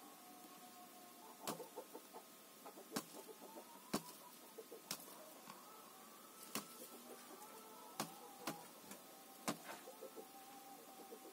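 Hen pecking at her own egg in a straw nest box: sharp beak taps on the eggshell, about eight irregular strikes roughly a second apart, with softer ticks between. This is egg-eating behaviour, the hen trying to break the egg open.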